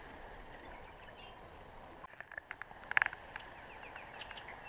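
Faint bush ambience: a steady low hiss, with a quick run of sharp clicks about three seconds in and short bird chirps near the end.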